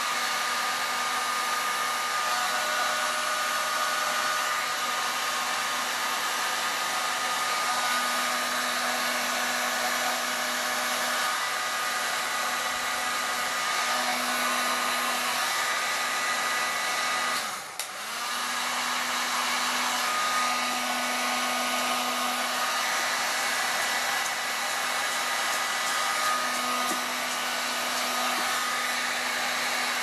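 Parkside electric heat gun running steadily, blowing hot air to shrink a heat-shrink boot over a crimped N connector on LMR400 coax. The level dips briefly about eighteen seconds in.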